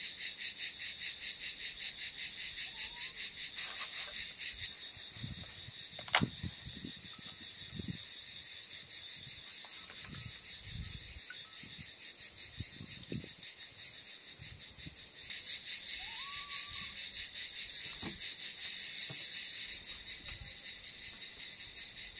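Insects chirring in a fast, steady pulsing rhythm, loud at first, dropping away about five seconds in and coming back in the last third. In the quieter middle, soft splashes and handling noises as dry yufka sheets are dipped in a bowl of water and laid in a pan, with one sharp click about six seconds in and a short bird call later on.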